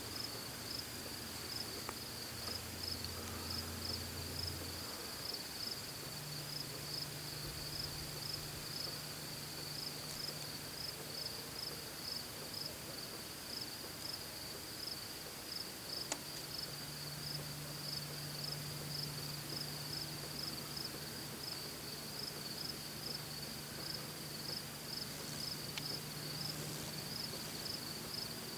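Crickets chirping in a steady, evenly repeated rhythm, with a faint low hum underneath that shifts in pitch about five seconds in.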